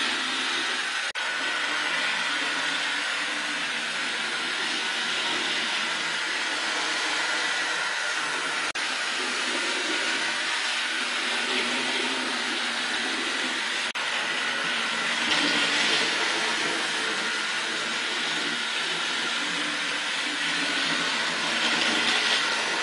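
Rivarossi HO-scale model steam locomotive running on its test track: a steady whirring of the electric motor and wheels on the rails, with an occasional click. It gets louder twice, about two thirds of the way through and again near the end, as the engine comes closer.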